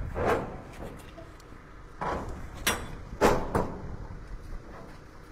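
Metal clanks and rattles from the locking bars and handles of a steel shipping container door being worked open. There are several sharp knocks, the loudest a little after three seconds in.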